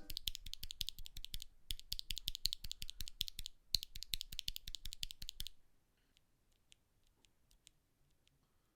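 Rapid plastic clicking of Akko V3 Cream Yellow mechanical keyboard switches in three bursts of about one and a half to two seconds each, then a few faint scattered clicks.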